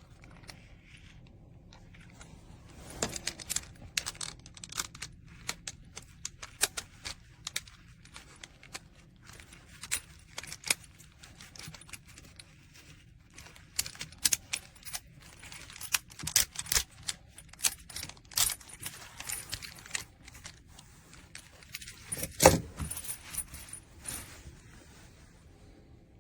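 Sportneer combination bike chain lock being handled, its metal links clinking and rattling in irregular bursts, with one louder clank near the end.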